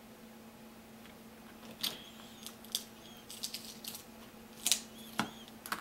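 An iPhone 4S battery being pried and pulled free of its adhesive with fingers and a plastic spudger. From about two seconds in there is a string of sharp clicks and short squeaky crackles, over a faint steady hum.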